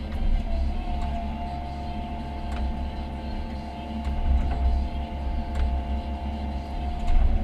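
Komatsu PC138US excavator running, a steady low engine rumble under a high steady whine that rises slightly about half a second in and then holds. A few faint clicks sound over it.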